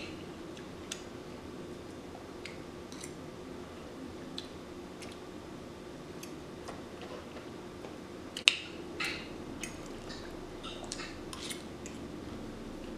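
A metal fork clicking and scraping against a dinner plate, with small eating sounds, in scattered light taps and one sharper clink about eight and a half seconds in, over a faint steady hum.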